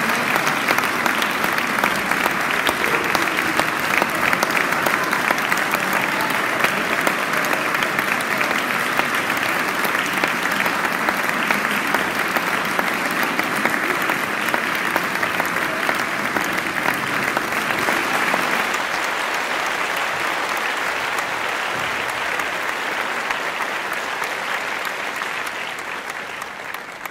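Audience applauding steadily, a dense patter of many hands clapping that fades out near the end.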